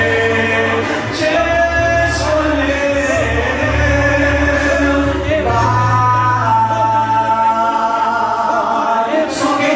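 Gospel worship singing with long held notes over a low, sustained bass accompaniment.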